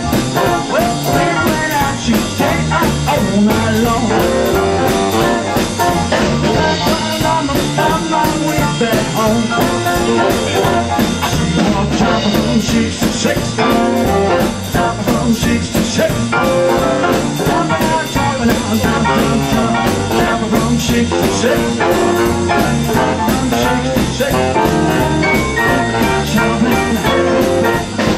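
A small jump-blues band playing live: upright bass, drum kit, hollow-body electric guitar, saxophones and electric piano, with a steady driving beat.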